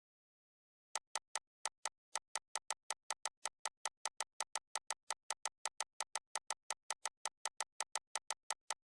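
A rapid run of identical short clicks, a little uneven at first and then steady at about five a second, starting about a second in and stopping near the end.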